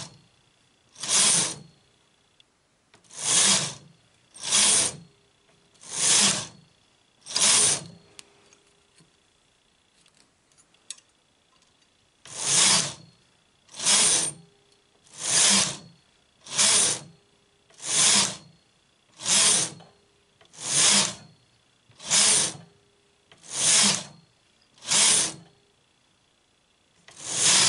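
Knitting-machine carriage pushed back and forth across the metal needle bed, knitting row after row: a rasping swish on each pass, about one every second and a half, with a pause of a few seconds after the first five passes.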